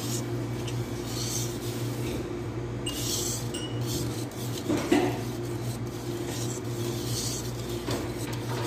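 Wire balloon whisk scraping and swishing around a stainless steel bowl while folding whipped egg whites into cake batter, with one louder knock against the bowl about five seconds in. A steady low hum runs underneath.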